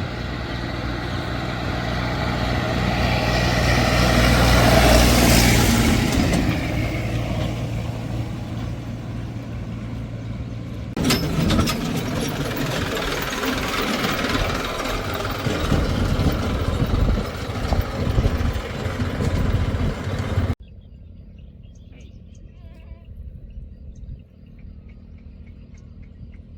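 Heavy diesel engines of earth-moving machinery running, rising to a peak about five seconds in. After an abrupt change, rougher machine noise follows. Near the end the sound cuts off suddenly to a quiet background with faint bird calls.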